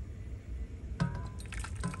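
Two metallic clinks, about a second in and near the end, the first with a brief ringing tone: a stainless steel kettle being handled as it is brought to the mug to pour.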